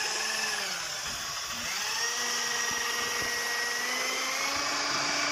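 Corded electric drill with a paddle mixer stirring paint in a plastic bucket. The motor runs steadily, slowing briefly about a second in, then picks back up and holds a steady pitch.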